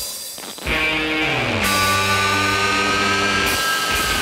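Background rock music with electric guitar. It drops out briefly at the very start and comes back in within about a second.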